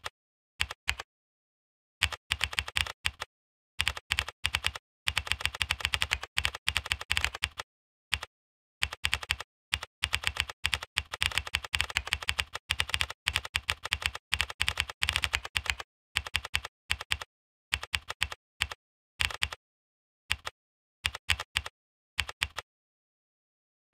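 Typing on a computer keyboard: quick runs of key clicks in bursts, broken by short pauses.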